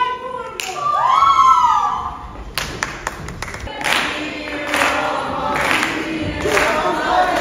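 Stage actors singing together and clapping their hands in a steady rhythm, about one clap every 0.7 seconds, the clapping starting a couple of seconds in. Before it, a single high voice sings a drawn-out note that rises and falls.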